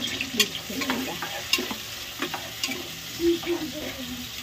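Sliced onions sizzling in hot oil in a pressure cooker while a spoon stirs and scrapes them around the metal pot, with a few sharp clinks of the spoon against the pot.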